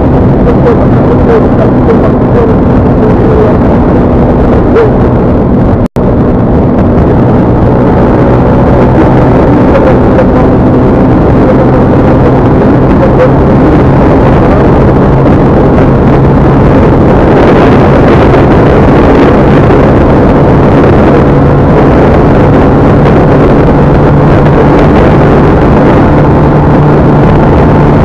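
A vehicle travelling on the road: a steady engine drone under dense road and wind noise, recorded very loud, cutting out for an instant about six seconds in.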